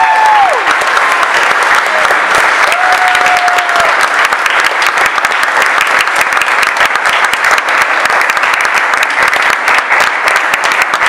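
Audience applauding, steady dense clapping throughout, with a whoop from the crowd at the start and another brief one about three seconds in.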